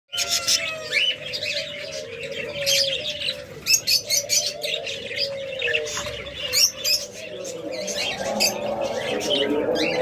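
Caged birds chirping and chattering busily, with the rapid high chirps of budgerigars and doves cooing low underneath. The low chorus thickens about eight seconds in.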